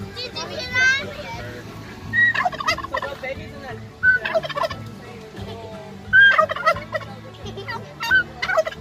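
Domestic tom turkey gobbling repeatedly, about five short rattling gobbles spaced roughly two seconds apart.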